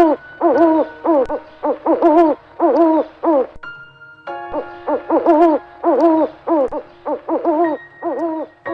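A rapid series of short, pitched animal calls, about three or four a second, each rising then falling in pitch. They break off briefly about three and a half seconds in, where a few steady ringing tones sound.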